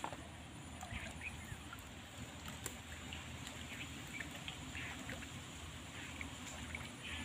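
Outdoor ambience: a steady low rumble with scattered short, faint chirps and a few small clicks.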